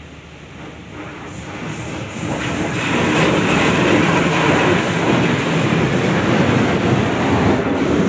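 Automatic car wash spraying water onto the car, heard from inside the cabin as a loud, steady rushing and drumming on the glass and body. It grows louder over the first three seconds, then holds.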